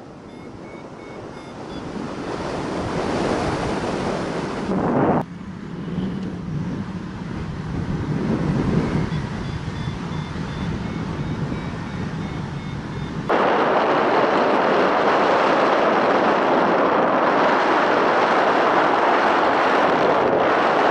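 Wind rushing over the camera microphone of a paraglider in flight, a steady roar of air that shifts abruptly about five seconds in and jumps louder about thirteen seconds in.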